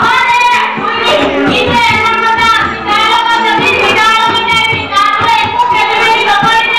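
A woman singing a song in a high voice, holding long, wavering notes.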